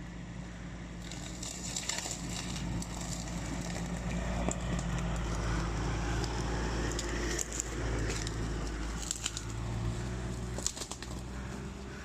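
Off-road pickup truck's engine running at low speed, with tyres crackling and crunching over rough ground from about a second in.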